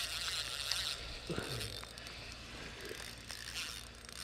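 Fly reel's click-and-pawl ratchet clicking while a hooked trout is played on the line.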